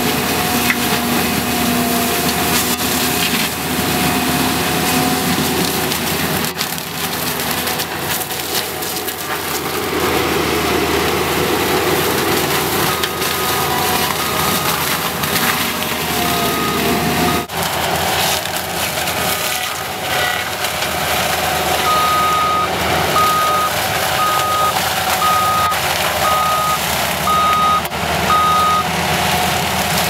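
Cat 299D compact track loader running hard with its mulching saw head grinding cedar trees and brush: a steady engine drone under the noise of wood being shredded. A backup alarm beeps a few times midway and then in a regular run of about eight beeps, roughly one a second, near the end.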